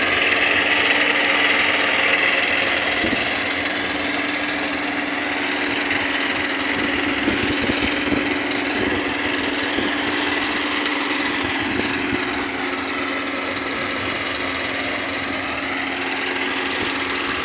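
Small engine running steadily, its pitch dipping and rising slightly over several seconds.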